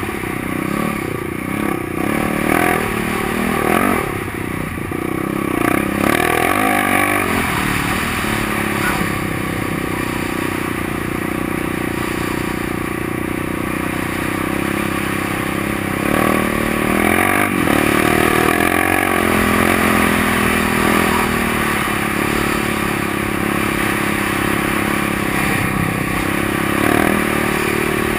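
Yamaha quad's engine running under load on sand, its revs rising and falling several times through the first few seconds, then holding steadier with a few more rises and dips.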